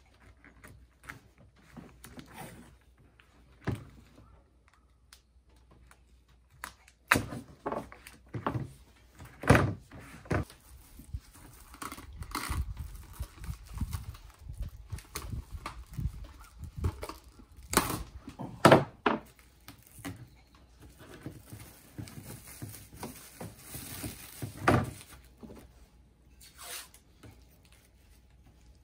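Handling noise from a plastic van door trim panel being worked on a wooden table: scattered knocks and thunks with rustling in between.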